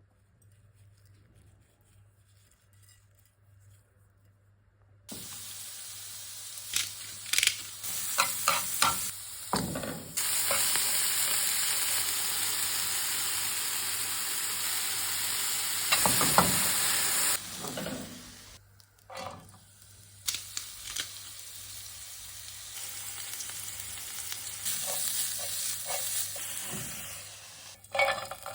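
Food frying in a pan for bibimbap: a steady sizzle with the clicks and scrapes of a utensil stirring against the pan. After about five seconds of near quiet the sizzling starts abruptly. It is loudest for a stretch in the middle, then drops sharply and goes on more quietly.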